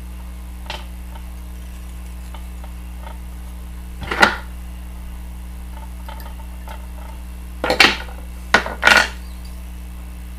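Brief scratchy handling sounds of fly-tying work at the vise, once about four seconds in and three times close together near the end, over a steady low electrical hum.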